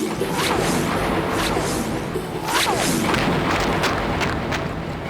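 Cartoon sound effects: a string of short, quick falling whooshes over a steady rumbling noise.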